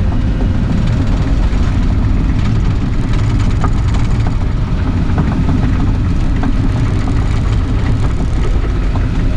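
Excavator diesel engine running steadily with a deep, even rumble, with a few faint clicks over it.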